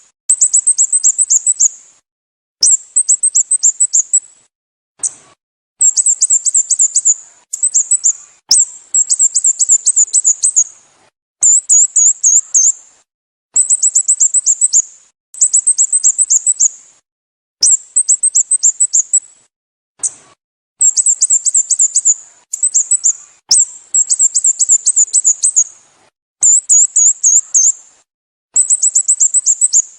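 Sooty-headed bulbul calls: very high, rapid runs of chirps, each lasting one to two seconds, repeated over and over with short gaps.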